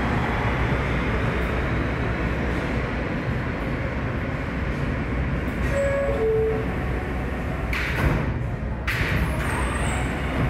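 New York City subway train running with a steady rumble of wheels on rail. A short two-note falling tone comes about six seconds in, and a louder rush of noise follows around eight seconds.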